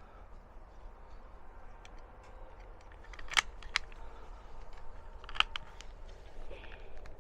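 Sharp metallic clicks and knocks of a single-shot .22 rifle being handled and reloaded between shots: two close together about three and a half seconds in, and another about two seconds later.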